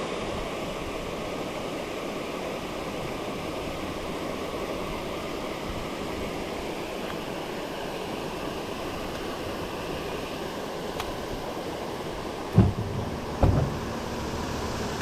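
Steady rush of water pouring over a creek falls, with two brief thumps near the end.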